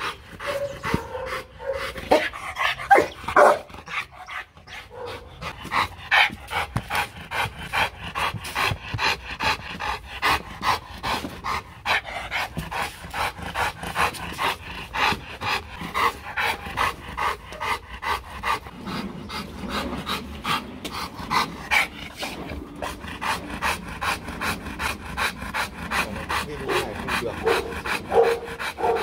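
A Rottweiler panting hard with its tongue out, in rapid, even breaths. There are a few louder sounds in the first few seconds.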